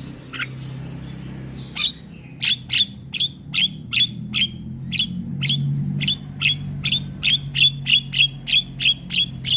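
Javan myna (jalak kebo) calling: a few scattered notes, then from about two seconds in a rapid run of sharp, harsh notes, two to three a second, coming closer together near the end.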